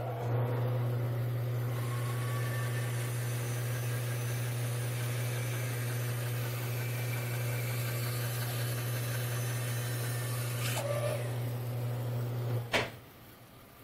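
Bandsaw running with a steady motor hum while its blade rips a thin slice, the back, off a glued-up wooden block fed against the fence. The sound stops abruptly near the end.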